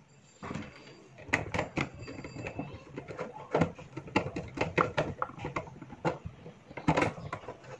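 Irregular clicks, taps and rustles of hands working wire and plastic switch and USB socket parts while wiring a modular switchboard, with a few sharper knocks among them.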